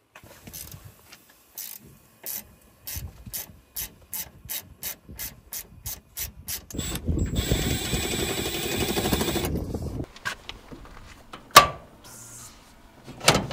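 Ratchet wrench with a hex key clicking in quick strokes that speed up as the service valves on a ductless mini-split outdoor unit are opened. This is followed by a rushing hiss of about three seconds as refrigerant is let into the line set, then one sharp clunk near the end as the unit's disconnect is thrown.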